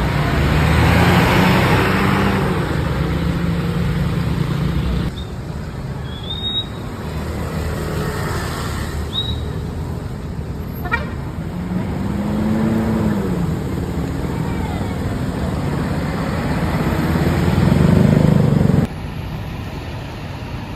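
Road traffic with buses running past and horn toots. The sound changes sharply about five seconds in and again near the end.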